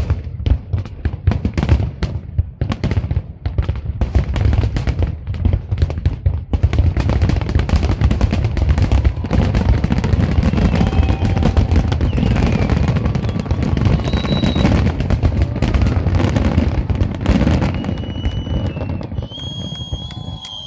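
Aerial salute fireworks display: a quick succession of shell bursts and bangs that about six seconds in thickens into a dense, continuous crackling barrage, then thins out near the end. A few thin, steady high tones come in over the last couple of seconds.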